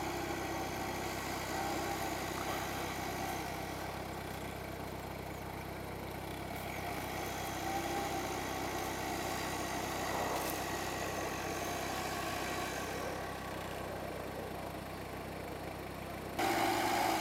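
Off-road 4x4 SUV engine idling steadily in deep snow, with a sudden louder change near the end.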